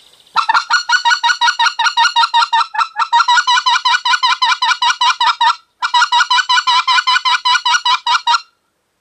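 Short-reed mouth call for the white-fronted goose blown in a fast series of clucks, about six short notes a second, the cupped hand opening and closing so the clucks rise and fall in pitch. There is a short break about five and a half seconds in before the series resumes.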